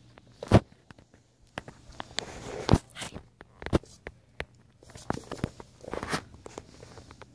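Border Collie puppy scrambling and playing on a hardwood floor: paws and claws scuffling and clicking, with several sharp knocks, the loudest about half a second in.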